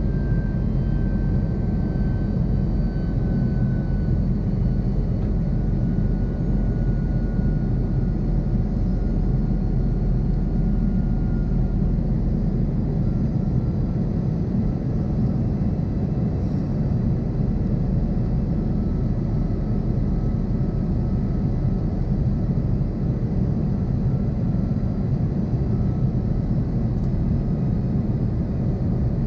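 Steady cabin noise of an Airbus A330-200 airliner in its climb-out, heard from a window seat beside the wing: the deep drone of the jet engines and rushing airflow. A faint whine slowly falls in pitch during the first dozen seconds.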